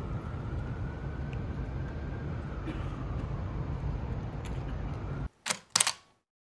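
Steady outdoor city background with a low rumble, which cuts out suddenly about five seconds in. It is followed by two sharp camera-shutter clicks about a third of a second apart, heard against silence.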